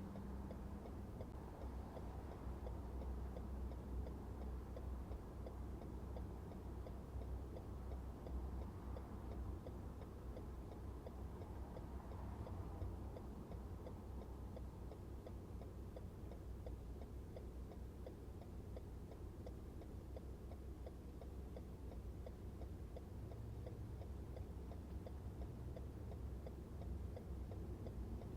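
Car turn-signal indicator ticking steadily inside the cabin, over a low, steady engine and road rumble.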